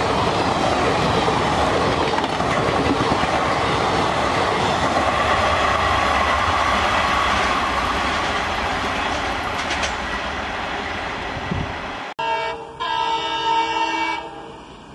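Train coaches rolling past with steady wheel and rail noise, fading slowly as the last coach draws away. After an abrupt cut, a diesel locomotive horn sounds twice: a short blast, then a longer one.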